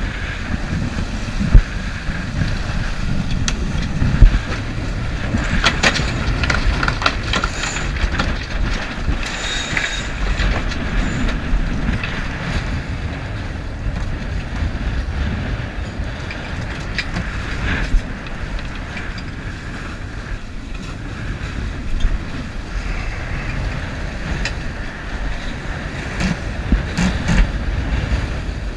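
Wind buffeting the microphone and water rushing along the hull of a sailboat beating close-hauled in heavy wind, with a few sharp knocks, the loudest about one and a half and four seconds in.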